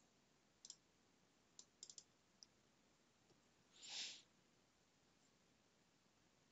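Near silence, broken by a handful of faint mouse clicks in the first two and a half seconds and one short soft hiss about four seconds in.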